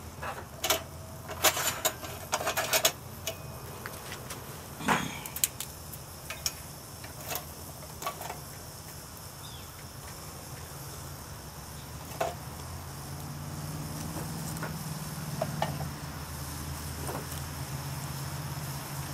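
Sticks clicking and knocking as they are handled and pushed into the stainless-steel feed door of a rocket stove, several sharp knocks close together in the first half and a few scattered later. A low steady rumble underneath grows louder in the second half.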